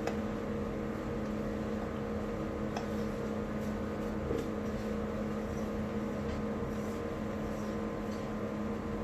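Steady background hum from an appliance, with a few faint light taps.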